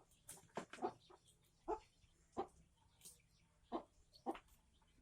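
A faint series of short, sharp animal calls, about nine in five seconds at uneven spacing.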